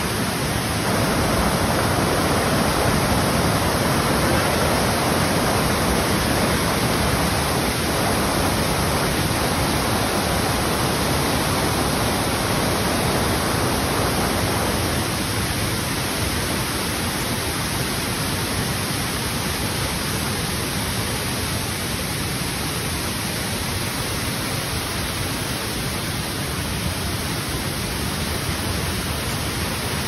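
Waterfall: white water cascading over rocks with a steady, dense rushing noise, a little quieter from about halfway through.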